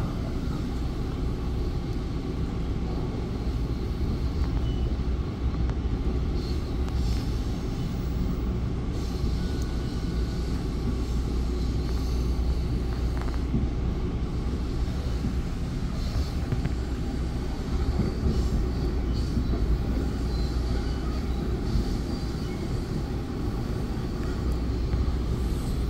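Steady running noise inside a moving Bombardier MultiLevel commuter coach: a low, even rumble of the wheels on the rails with no distinct knocks or breaks.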